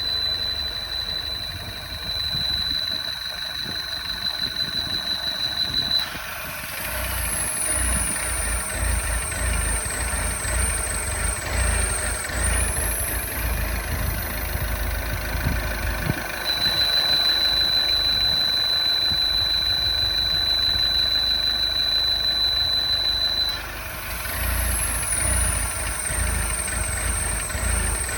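MINI Crossover R60 engine running, recorded while the owner tracks down an abnormal engine noise. A steady high-pitched tone sounds for several seconds near the start and again in the middle, with a fainter, higher whistle that falls and then rises twice.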